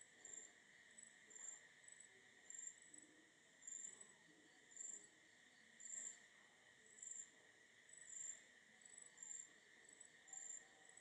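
Near silence with a cricket chirping faintly: short high chirps repeating roughly once or twice a second over a faint steady high hum.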